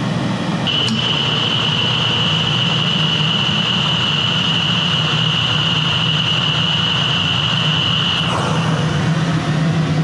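Old commercial steam boiler's burner running through its start-up sequence, its blower running steadily with a low hum. A steady high-pitched tone comes in about a second in and stops about eight seconds in, and the hum then grows stronger.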